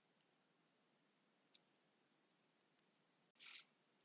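Near silence: faint room tone, with one faint click about a second and a half in and a soft brief rustle near the end.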